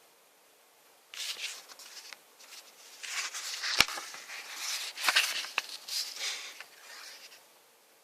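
Rustling and handling of packaging in bursts over several seconds, with a single sharp click a little before the middle and a few fainter clicks after it.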